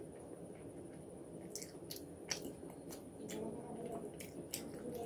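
Close-up eating sounds: chewing a mouthful of fried rice, with scattered wet mouth clicks, more of them in the second half, while fingers squish and mix rice on a banana leaf.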